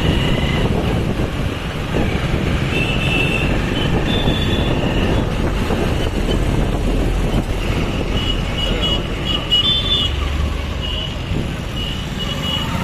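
Busy road traffic heard from a moving vehicle: a steady rumble of engines and tyres, with short high horn beeps now and then.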